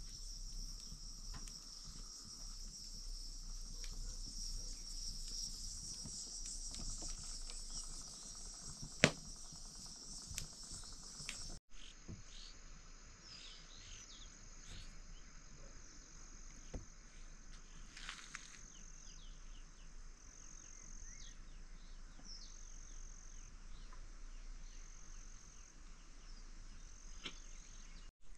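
Insects chirping in a steady high-pitched drone, with a single sharp click about nine seconds in. After an abrupt break a little under halfway through, a different high insect call pulses about once every second and a half, with short falling chirps over it.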